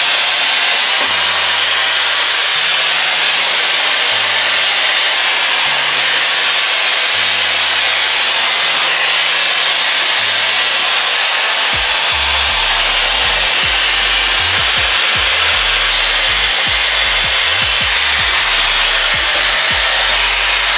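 Shark FlexStyle air styler running steadily, its fan blowing air through the curling barrel with a constant hiss. Background music with a stepping bass line plays underneath.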